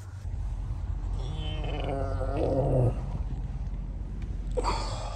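A man's long, drawn-out groaning yawn, growing louder and stopping abruptly about three seconds in, with a shorter vocal sound near the end. A steady low hum runs underneath.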